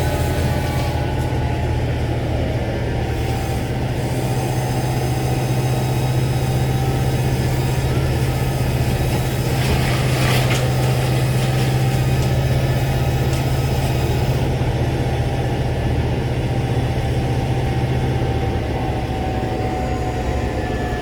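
Diesel engine of a tree crew's wood chipper running steadily at a constant pitch, with a brief rougher burst of noise about ten seconds in.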